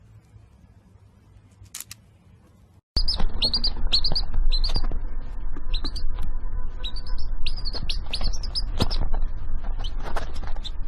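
A bird chirping over and over in short, high, hooked chirps, about two a second, over a steady low background noise. They start suddenly about three seconds in, after a faint, nearly quiet stretch.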